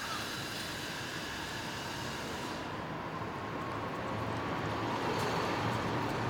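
Steady low rumble and hiss of outdoor background noise, a little louder in the second half.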